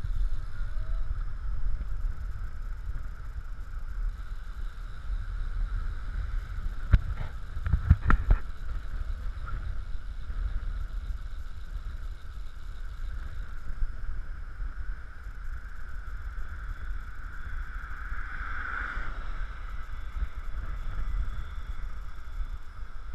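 Wind rumbling over the microphone of a camera mounted on a moving recumbent bicycle, over a steady hum of tyres on the road. A few sharp knocks come about seven to eight seconds in.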